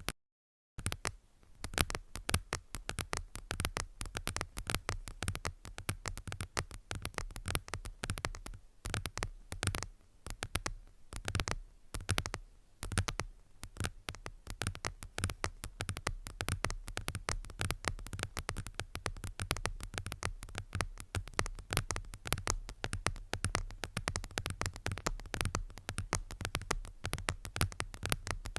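ASMR trigger sounds: a dense run of rapid, irregular tapping and clicking over a steady low hum, broken by a brief silent cut just after the start.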